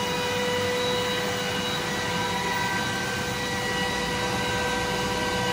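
Glowforge Pro laser cutter running an engraving job: a steady whir of its fans with a steady high whine over it.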